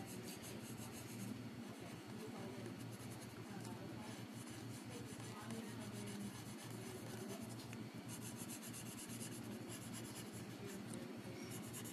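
Wooden pencil scratching faintly on paper in rapid shading strokes, over a faint steady low hum.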